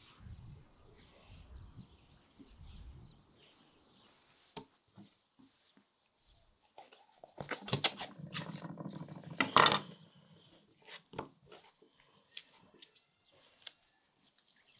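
A large knife cutting through a raw whole chicken on a wooden cutting board. About halfway in come a few seconds of dense cracking and knocking as the blade goes through the bird, followed by scattered small taps and knocks as the chicken is handled on the board.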